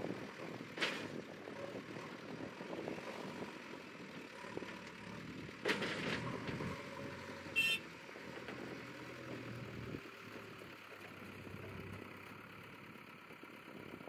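JCB 3DX backhoe loader's diesel engine running as it tips a bucket of soil into a tipper truck and backs away, with two sharp knocks, about a second in and near six seconds, and a short beep a little past halfway.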